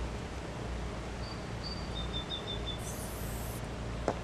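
Steady outdoor background noise with a few faint, high bird chirps in the middle, then a short hiss of an aerosol spray-paint can about three seconds in.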